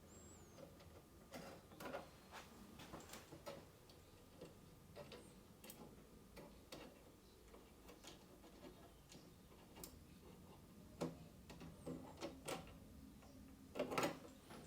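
Faint, irregular clicks and light taps as the deck of a 1/6-scale model tank is unfastened and lifted off, with a few louder knocks near the end.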